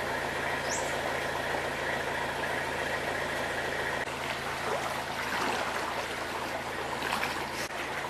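A steady hum, then, after a change about four seconds in, floodwater sloshing and swishing around the legs of someone wading knee-deep, with a few splashes near the end.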